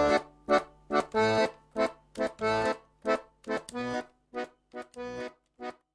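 Accordion music: a run of short, detached chords over a faint held bass note, growing quieter toward the end.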